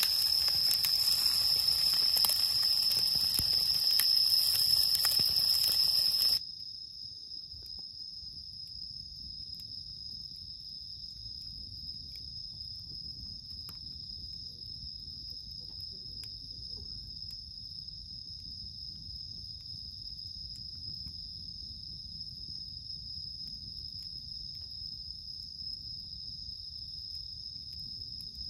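Steady high chirring of night insects. For the first six seconds it sits under a loud sizzling and crackling of food frying in a pan over a wood fire. That noise cuts off abruptly, leaving the insects with faint crackles from the fire.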